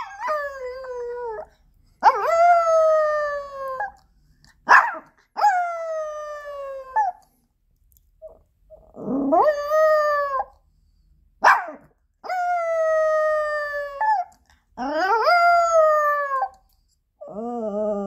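A Pomeranian howls in a string of about seven long, drawn-out howls, each sliding slowly down in pitch, with a few short sharp yelps between them. It is the distress howling of a dog left alone at home.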